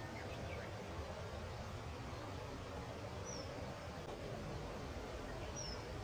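Two short, high, thin calls about two seconds apart, each falling slightly in pitch: a common kingfisher calling. Under them runs a steady low rumble of outdoor background noise.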